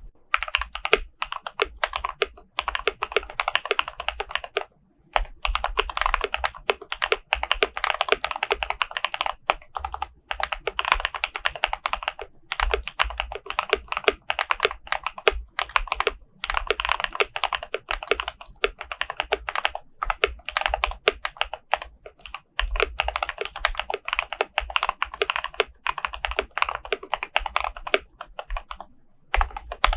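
KBD67 Lite R2 custom mechanical keyboard being typed on in fast runs with brief pauses: lubed Cobalt POM switches on a polycarbonate plate under PBT keycaps, with foam and tape dampening in the case.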